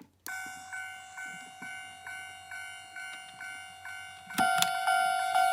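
Toy railroad crossing's electronic warning bell ringing a repeated ding about twice a second. It turns noticeably louder, with a knock, near the end.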